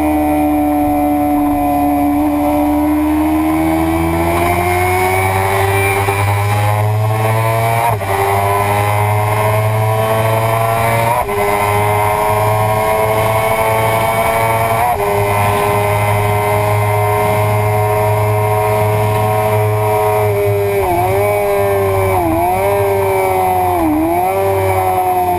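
Suzuki sport bike engine running hard on track, heard onboard over steady wind rumble. Its pitch sags, then climbs steadily with three short breaks at gear changes midway, and dips quickly three times near the end.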